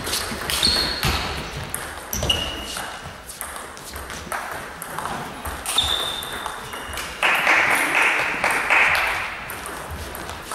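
Table tennis ball struck back and forth in a rally, clicking off the bats and the table, each hit with a short high ping. About seven seconds in comes a louder burst of noise lasting about two seconds.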